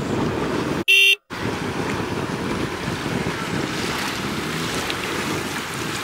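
Wind buffeting the microphone over sloshing sea water. About a second in, the background cuts out for a short, loud beep of about a third of a second.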